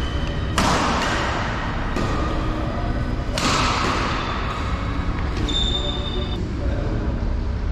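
Badminton doubles rally in a reverberant hall: sharp racket strikes on the shuttlecock and thuds of footwork, with short high squeaks of shoes on the court floor.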